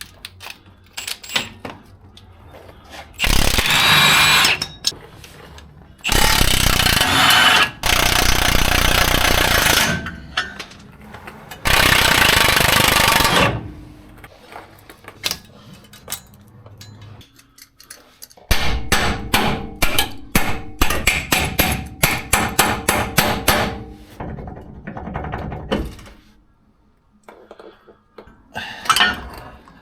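Impact wrench working on suspension bolts: three long bursts of rapid hammering, then, about two-thirds of the way in, a run of quick separate knocks lasting several seconds.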